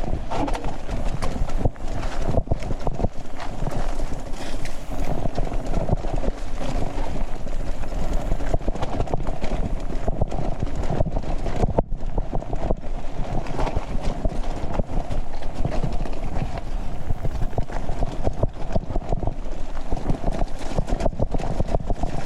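Mountain bike rattling and clattering without a break as it speeds downhill over rough ground, heard through a GoPro fixed to the bike or rider.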